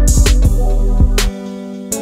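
Background music with a deep bass line and a drum beat.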